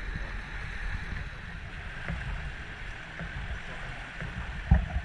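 Small boat under way on open sea: steady rush of water along the hull with wind buffeting the microphone, and a few louder low thumps near the end.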